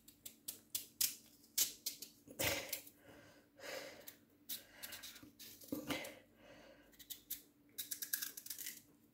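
Knife cutting through hard raw sweet potato held in the hand, slicing off long chip-sized strips: an uneven run of sharp crisp clicks and snaps as the blade bites through the flesh.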